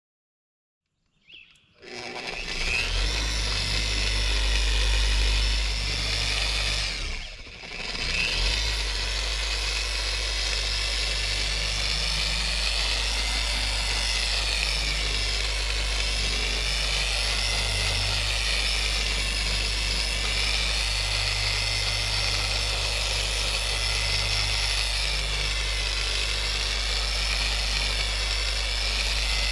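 Bauer 7.5-amp 6-inch long-throw random-orbit dual-action polisher running steadily with its pad on fiberglass camper siding, starting about two seconds in. Under its low motor hum, a higher whine wavers in pitch, and the sound dips briefly about seven seconds in.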